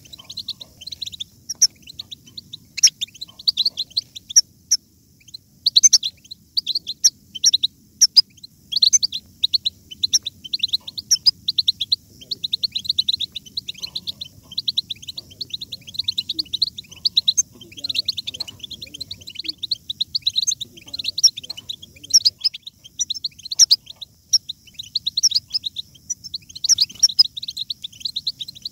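European goldfinches twittering: a dense, continuous stream of quick, high chirps and twittering notes, several birds at once.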